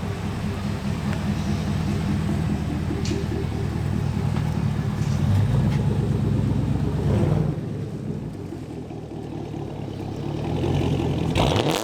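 Car engine and exhaust running, just after the exhaust leaks were patched and new 4-inch tips fitted. It runs steadily, louder for a couple of seconds in the middle, then quieter, and revs sharply right at the end.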